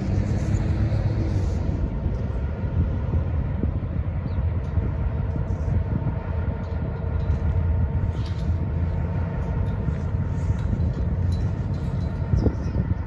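Diesel locomotive idling: a steady low engine rumble with a faint steady tone above it.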